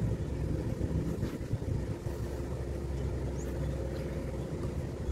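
A steady low rumble of outdoor background noise, with no distinct events standing out.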